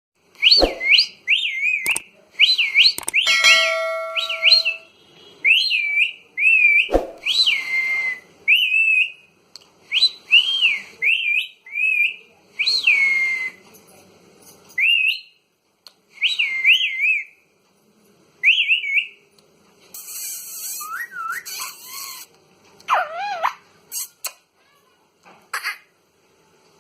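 Pet parrot whistling over and over: short, shrill whistles that swoop up and down in pitch, with a few sharp clicks between them.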